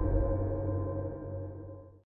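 Fading tail of a cinematic logo sound effect: gong-like ringing tones over a low rumble, dying away steadily and cut off at the end.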